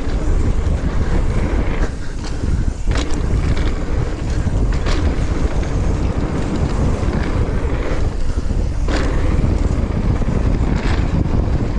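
Heavy wind buffeting a helmet- or body-mounted action camera's microphone as a mountain bike rides fast down a dirt jump line, with tyre and bike rattle underneath and a few sharp knocks scattered through.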